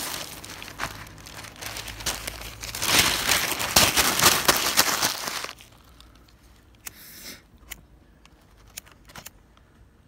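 Newspaper being crumpled by hand, a dense crackling rustle that is loudest about three to five seconds in and stops suddenly, followed by a few faint paper crinkles.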